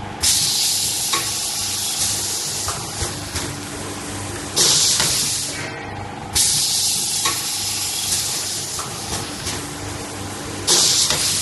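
Automatic paper plate forming machine running: four sharp hisses of air venting from its pneumatic cylinders, each starting suddenly and fading over about a second. Between them are a steady machine hum and light clicks of the press mechanism.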